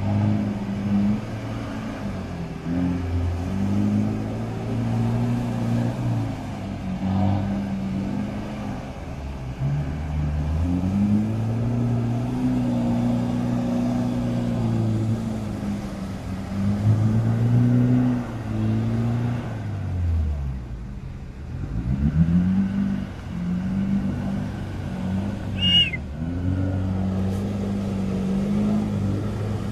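Off-road 4x4's engine revving up and down over and over, its pitch rising and falling every few seconds as it works through an obstacle. Near the end there is a brief high-pitched squeal.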